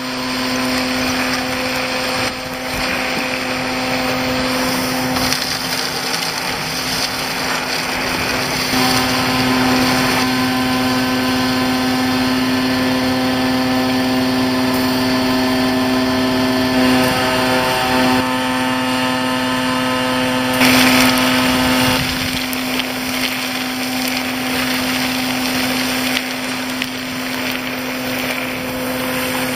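CAPBORA vacuum truck running its suction blower while its long hose sucks gravel off a flat roof. The sound is a steady hum and whine over a rushing hiss. It grows louder about nine seconds in, peaks around twenty-one seconds, then eases.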